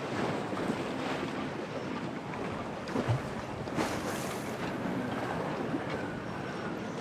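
Stormy harbour ambience: wind and waves washing steadily, with a short dull thump about three seconds in and a brief louder rush of water or wind just after.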